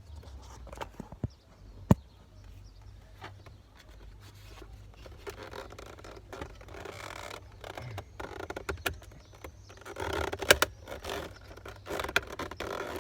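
Scraping and rustling of an air-conditioning duct being handled and pressed into place, with a few sharp knocks, the loudest about two seconds in and another near ten and a half seconds.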